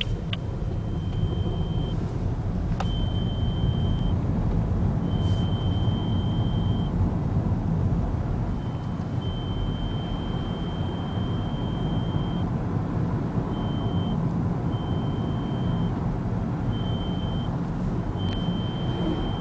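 A faint, thin, high-pitched whine from the BMW 320i (F30) that comes and goes in stretches of one to four seconds, over the car's steady low running rumble. The dealer took the whine for intake (air-flow) noise from the air-conditioning compressor.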